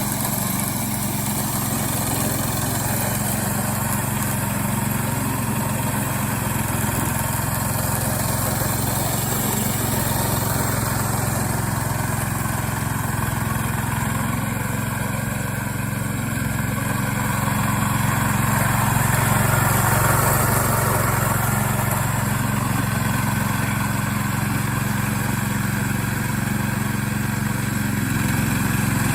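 Engine of a homemade radio-controlled four-wheel-drive lawn mower running steadily, getting a little louder about two-thirds of the way through.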